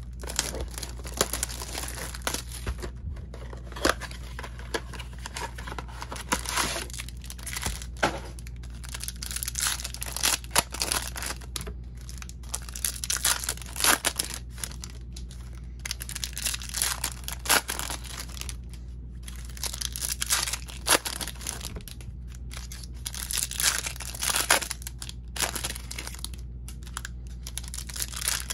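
Topps baseball card blaster boxes and their card packs being torn open by hand, wrapper material tearing and crinkling in irregular spurts with sharp crackles, over a steady low hum.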